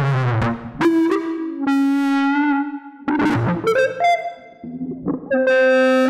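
Computer-processed electric guitar duetting with a software harmonizer, playing an improvised line of sharply attacked, synth-like notes rich in overtones. A long note is held from just under two seconds in to about three seconds, and another is held near the end.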